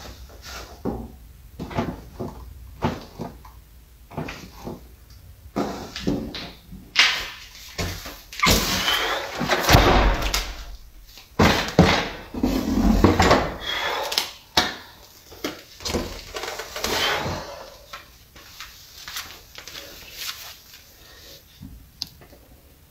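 Handling noise from a plastic-wrapped metal Liebherr 970 scale model excavator being lifted out of a foam-lined wooden crate and set down on wood: repeated knocks and clunks, with a stretch of dense rustling and scraping in the middle.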